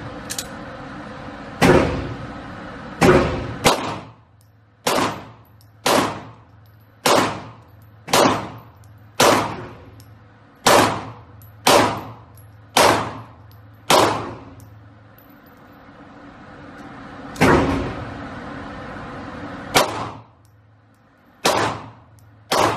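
Single pistol shots fired one after another, about sixteen in all, mostly about a second apart with a pause of a few seconds midway, each echoing briefly off the walls of an indoor range.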